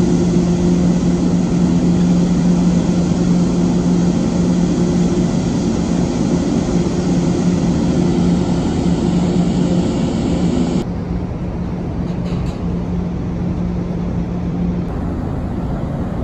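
Steady low drone of a large ferry's engines and machinery under a loud, even rushing noise. The rushing drops away abruptly about eleven seconds in, leaving a quieter hum.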